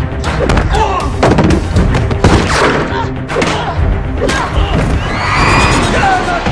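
Fight-scene sound effects over a dramatic music score: a rapid series of punch and body-impact thuds, several a second.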